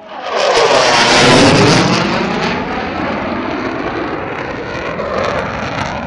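F-16 Fighting Falcon jet engine noise as the fighter flies past low overhead. It swells quickly just after the start and is loudest about a second in, then holds as a steady, loud rushing roar with a sweeping, phasing hiss in it.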